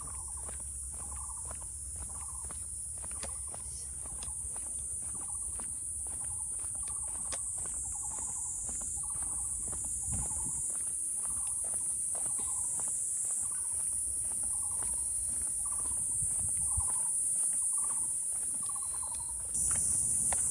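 Steady high-pitched drone of insects, with a short call repeated about once a second underneath it.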